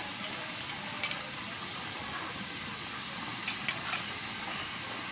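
Chili sauce and oil sizzling steadily in a frying pan, with a few light clicks of a spoon against the pan near the start and again about three and a half seconds in.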